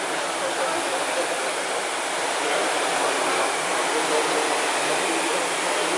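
A row of Concept2 rowing machines running together at race pace, their air-resistance fan flywheels whirring into one steady whooshing noise.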